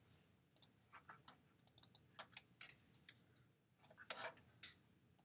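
Faint, irregular clicking from computer mouse and key presses: more than a dozen short clicks, the loudest cluster about four seconds in.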